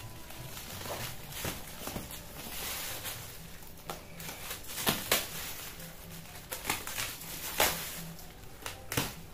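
Utility knife slicing through packing tape and cardboard on a parcel, in scattered scrapes and sharp clicks, with rustling of the plastic wrapping around the box.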